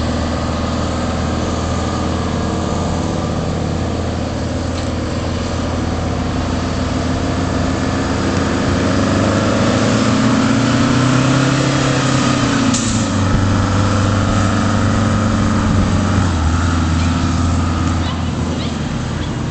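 1978 American LaFrance tiller ladder truck's 8V71 Detroit Diesel, a two-stroke V8, running as the truck drives. The engine note climbs in pitch through the middle and falls back sharply about thirteen seconds in.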